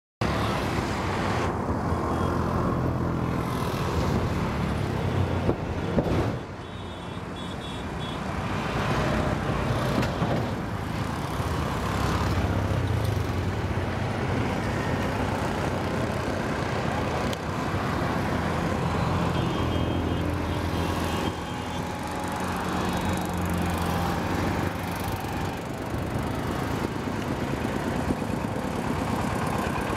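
Road traffic running past steadily, with the engines of passing vehicles swelling and fading. There are short high beeps about 7 seconds and about 20 seconds in.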